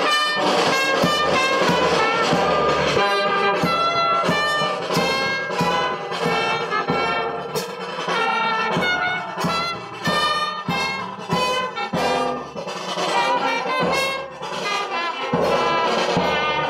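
Music led by brass instruments such as trumpets and trombones, playing over a steady beat of about two strokes a second.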